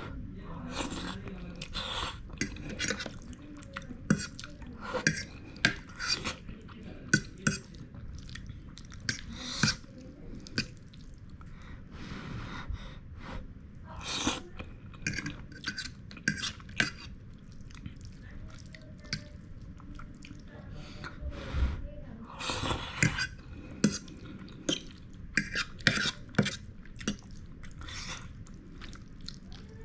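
A person eating Wai Wai instant noodles close to the microphone: wet chewing and eating noises, with irregular sharp clicks and clinks, typical of a utensil against the dish.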